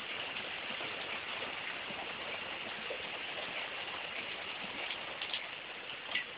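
Heavy rain pouring steadily onto a garden, making an even hiss with a few sharper drip ticks near the end.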